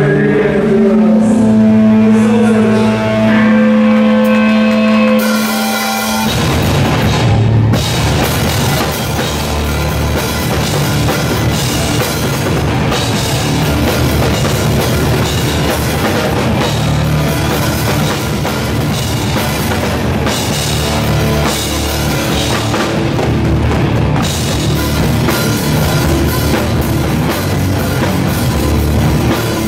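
Hardcore band playing loud live music. It opens with sustained notes ringing over a low held tone, then about six seconds in the drums and guitars come in all at once and keep going hard.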